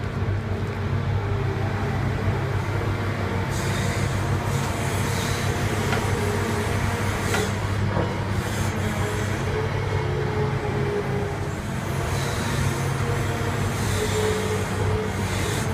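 Large excavator's diesel engine running steadily under load, with a wavering whine and hiss coming and going a few times as the machine works.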